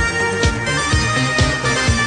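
Background music with a steady beat, about two drum hits a second.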